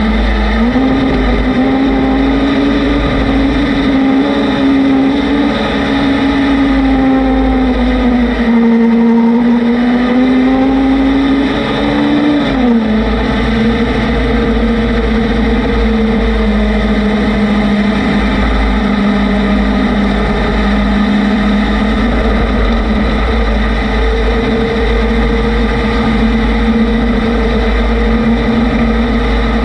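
A vehicle engine running at a steady speed. Its pitch sways up and down a little and drops suddenly about twelve seconds in, then holds steady again. Wind rumbles heavily on the microphone throughout.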